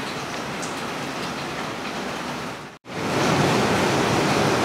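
Steady rain falling, heard through an open door. Near the middle it cuts out for an instant and comes back a little louder.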